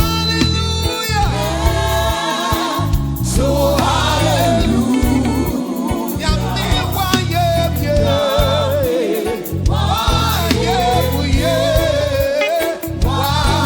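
Live gospel praise music: a lead singer with choir over a full band with heavy bass.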